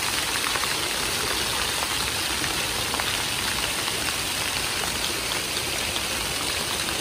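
Floor-level plaza fountain: many thin water jets shooting up through floor grates and falling back onto wet paving, a steady splashing of falling water.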